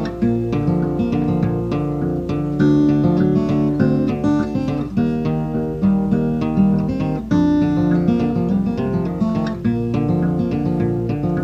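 Acoustic guitar playing: strummed and picked chords in a steady rhythm, an instrumental passage before the singing comes in.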